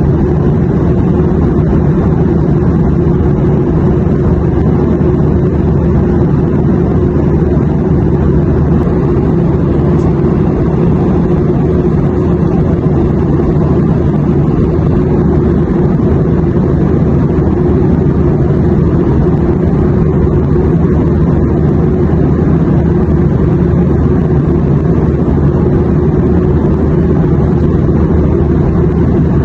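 Airplane noise used as white noise: a steady, deep drone with a low hum, unchanging throughout.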